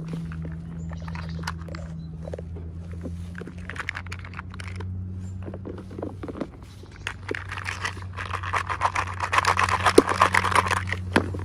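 Packaging being handled, with scattered small clicks and a denser crinkling stretch in the second half, over a steady low hum.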